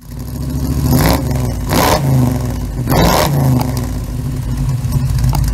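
A car engine revving: three quick blips of the throttle, each rising and falling in pitch about a second apart, then running steadily.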